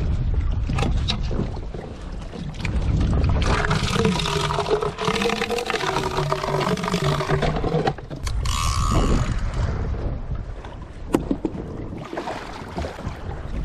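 Wind on the microphone and water moving against a plastic fishing kayak, with handling knocks. A low pitched hum that steps between a few pitches runs for about four seconds in the middle, followed by a short higher tone and a couple of sharp clicks near the end.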